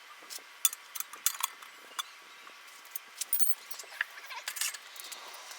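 Irregular sharp metallic clicks and clinks of tire irons against a motorcycle wheel rim while a tire is levered off it.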